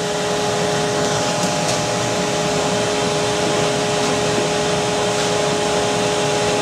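Steady whir of a dust-collection vacuum running through the shaping-room hose, an even hiss with a constant low hum in it.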